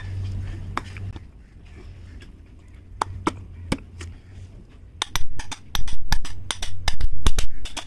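Hammer tapping the end cap of a starter motor down onto its housing to seat it: a few separate knocks, then a quick run of sharp blows, several a second, over the last three seconds.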